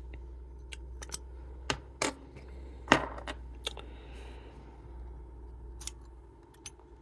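Metallic clicks of a key being turned backwards in a Chubb detector lever lock, resetting the tripped detector so the lock works again. The clicks are irregular, about nine of them, the loudest about three seconds in, over a steady low hum.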